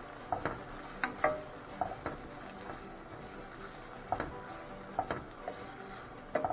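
Wooden spoon stirring sliced onions, peppers and thyme in a stainless steel sauté pan. It knocks and scrapes against the metal in irregular taps, several in quick pairs, some with a brief ring.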